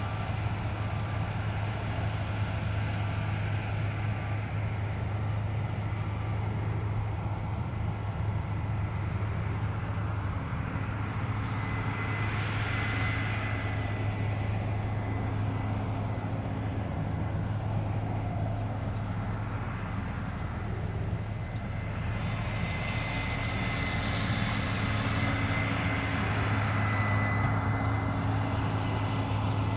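Combine harvester and tractor engines running steadily during harvesting, a constant low drone with a thin high whine that comes and goes. A faint beep repeats about once a second in the first few seconds.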